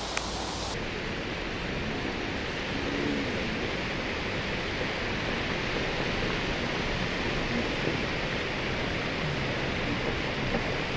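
Steady rushing background noise with nothing distinct in it, and one brief click near the start.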